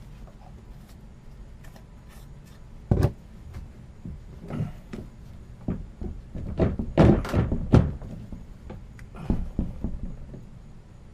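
A series of irregular knocks and thuds: one loud knock about three seconds in, a dense cluster of them around seven seconds in, and scattered lighter ones in between.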